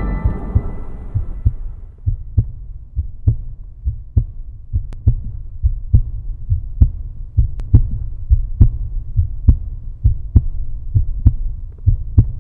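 A slow heartbeat: low paired thumps a little under once a second, with the piano music fading out over the first two seconds.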